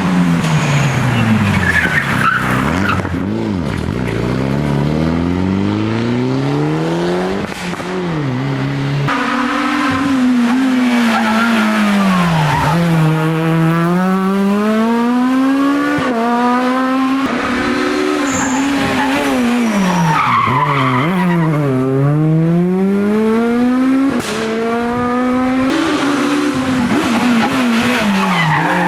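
Rally cars working hard on a closed special stage: the engine note climbs as the car accelerates, drops sharply under braking into corners, then climbs again, over and over.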